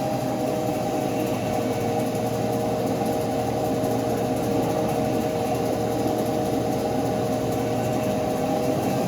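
CNC lathe running while turning a pinion: a steady machine hum with several held tones that do not change.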